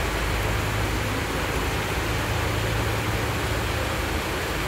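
Heavy rain pouring down in a steady, even hiss, with water running over a flooded road.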